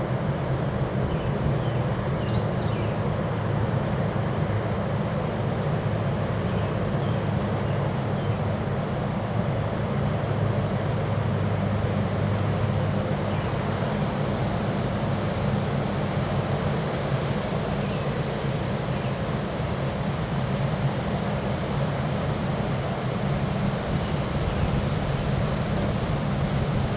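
Strong wind blowing steadily, buffeting the microphone with a deep rumble under a rushing hiss.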